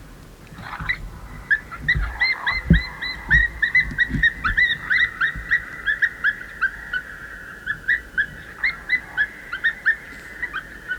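Electronic predator caller playing a distress call to lure coyotes: rapid short squealing notes, several a second, over a steady high whine. A few soft low thumps come in the first seconds.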